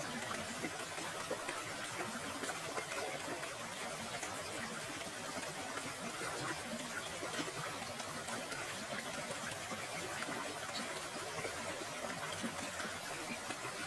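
Steady rush of running water from a waterfall, with faint small splashes throughout.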